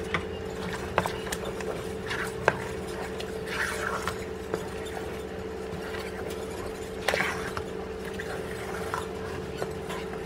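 Wooden spatula stirring and scraping a thick, set coconut-milk and cornstarch pudding in a metal pot, with a few sharp clicks against the pot, over a steady hum.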